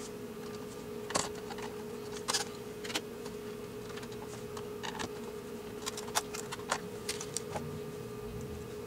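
Small screws and a screwdriver clicking and tapping on the CD player's chassis during reassembly: about a dozen light, scattered clicks over a steady hum.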